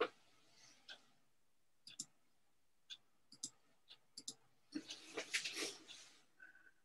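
Faint scattered clicks, roughly one a second, then a brief rustle of hands and clothing about five seconds in.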